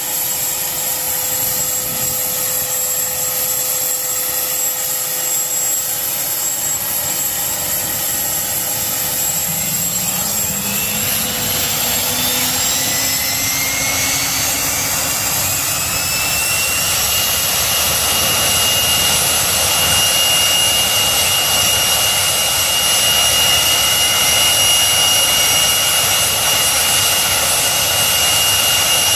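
Erickson Air-Crane (Sikorsky S-64) helicopter's turboshaft engines running on the ground with a steady whine; about ten seconds in a rising whine spools up over several seconds and settles into a higher steady whine as the engines come up to speed, the sound growing slightly louder.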